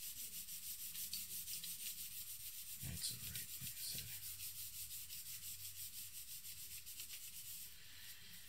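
Charcoal stick scratching across drawing paper in quick, even back-and-forth shading strokes, laying in dark tone; the strokes stop briefly near the end as the hand lifts.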